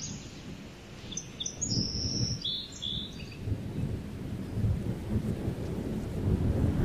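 A low rumble that grows louder toward the end, with a few short bird chirps in the first half.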